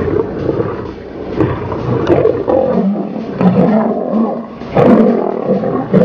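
Lions growling and snarling in a fight, the rough growls growing louder and more frequent from about two seconds in.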